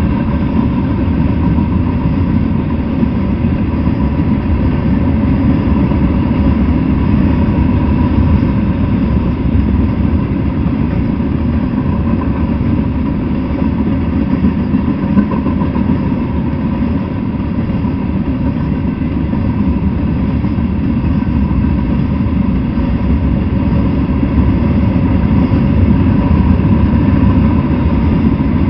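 Freight train cars rolling past at speed: a loud, steady rumble of steel wheels on the rails, with a faint steady whine held through it.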